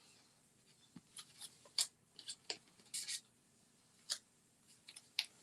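Paper card pieces being handled on a table: a string of short, scattered rustles and light ticks with quiet gaps between them.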